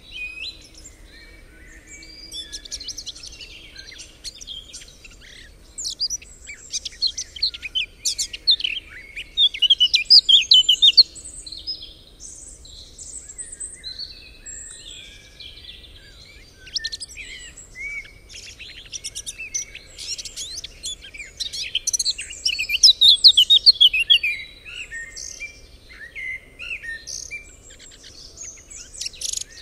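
Several songbirds singing together, a dense chorus of quick high chirps and trills that grows louder about ten seconds in and again a little past twenty seconds.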